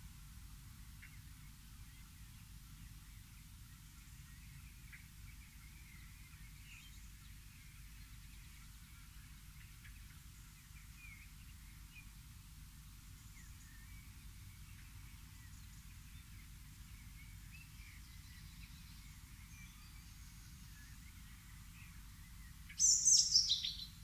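Faint, scattered chirps of wild songbirds over a steady low background noise, then, about a second before the end, a loud burst of quick high calls that fall in pitch.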